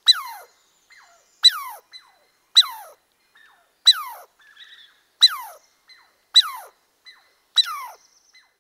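California ground squirrel giving a series of alarm chirps: seven sharp calls, one about every second and a quarter, each dropping quickly in pitch, with fainter short chirps in between.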